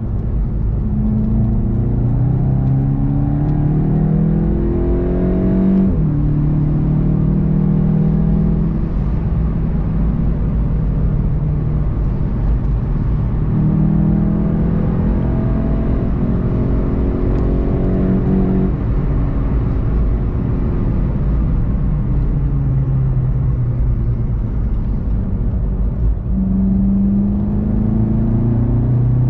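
VW Golf 7 GTI TCR's turbocharged four-cylinder engine under hard acceleration on track, over steady road and tyre rumble. Its note climbs, drops sharply about six seconds in and again about two-thirds of the way through, and climbs again near the end.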